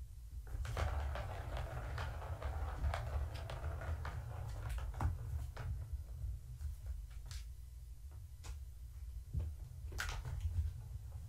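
Plastic ball rolling and rattling around the track of a Catit circular trackball toy as a kitten bats at it: a continuous rolling rattle for the first few seconds, then scattered clicks and knocks. A steady low hum runs underneath.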